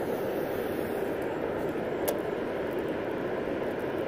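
Steady rushing roar of river water pouring through three open dam gates, with one sharp click about two seconds in.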